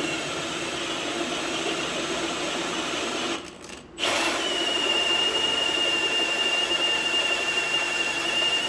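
Power drill boring out a metal bolt with a larger twist bit, enlarging the pilot hole. It stops briefly about three seconds in, then restarts with a steady high-pitched whine from the bit cutting.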